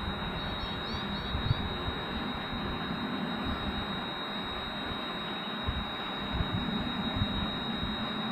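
Wind rumbling on the microphone over a steady hiss, with a thin steady high-pitched tone running underneath.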